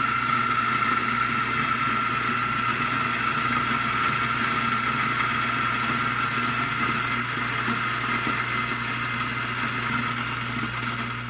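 Eureka Mignon Specialita electric coffee grinder, with 55 mm flat burrs, grinding a dose of coffee beans. It makes a steady motor whir with a high whine on top, which eases off a little near the end.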